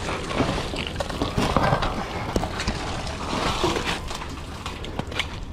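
Wind rumbling on the microphone, with scattered knocks and clanks as a wet metal find is handled.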